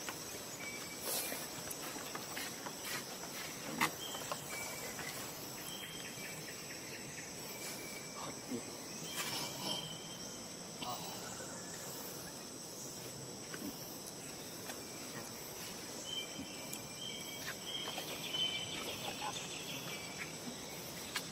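Outdoor ambience of insects, crickets or cicadas, droning in a steady high tone over a steady hiss. Short high chirps come now and then, most of them near the end, with a few small clicks.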